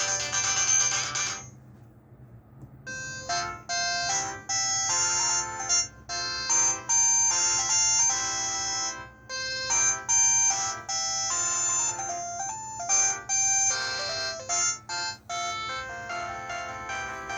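Electronic ringtone melodies played through a Huawei ETS688 phone's speaker. One tune cuts off about a second and a half in, and after a short pause another tune begins and runs on in quick, stepping notes.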